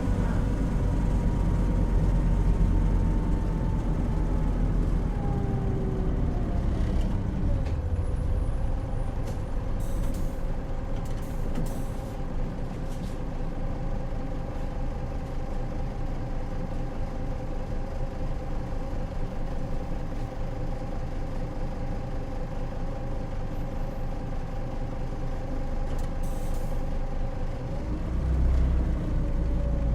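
Cabin running sound of a Hino Rainbow HR city bus (PB-HR7JHAE) with its J07E six-cylinder diesel. The engine pulls hard at first, then eases off around seven seconds in. It settles into a steady cruise with a level drivetrain whine, and pulls again near the end. A few short hisses come through in the middle and toward the end.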